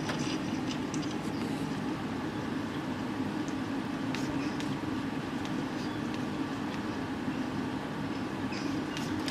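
Small electric desk fan running steadily: a low motor hum under an even whoosh of air, with a few faint short ticks.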